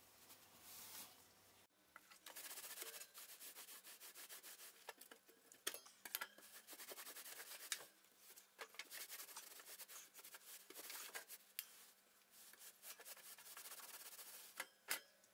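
Faint rubbing of a damp dish towel scrubbing dried baking-soda paste off the inside of an oven, in quick repeated strokes with a few sharper clicks.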